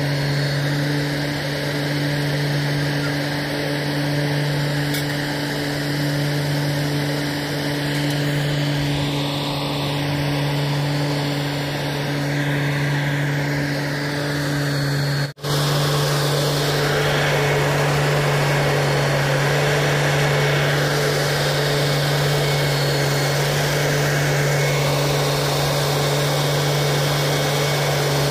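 Engine of a railway utility track vehicle (UTV) running steadily at a constant pitch during rail unloading, with a momentary break just past the middle.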